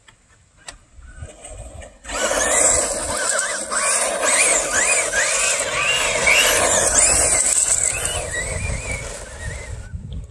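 Stock Traxxas Rustler VXL brushless RC truck running, its electric motor whining up and down in quick throttle bursts over a steady rushing noise. It starts suddenly about two seconds in and stops near the end.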